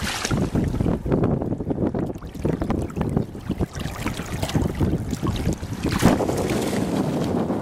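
Irregular splashing of feet and a dog's legs wading through shallow water, with wind rumbling on the microphone.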